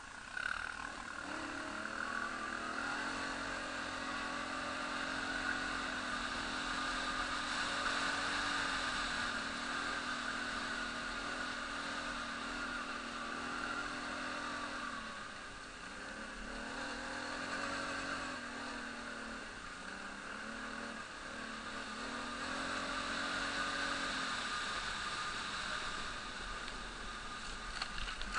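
Quad bike (ATV) engine running as it is ridden along a dirt track, the revs rising and falling, easing off about halfway through and picking up again.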